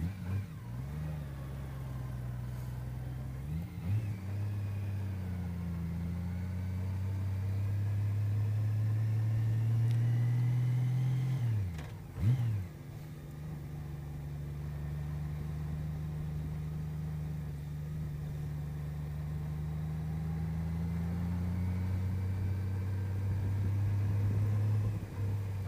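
Honda CBR600RR's inline-four engine running at low revs as it is ridden slowly in a low gear, a steady hum that creeps up in pitch and loudness, with two short dips and swoops in pitch, about 4 and 12 seconds in, as the throttle is closed and opened again.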